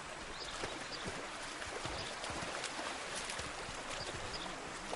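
Running water: a steady rush with a few soft, irregular splashes.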